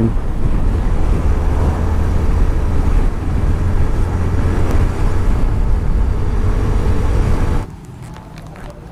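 Wind rushing over the microphone with the Yamaha SZ150's single-cylinder engine and the road noise of a motorcycle at cruising speed, a loud steady rumble. Near the end it cuts off abruptly to a much quieter outdoor background.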